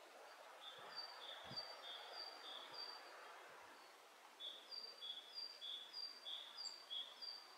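Great tit singing its two-note song, a lower and a higher note alternating in a quick even rhythm, in two phrases with a short pause about halfway through.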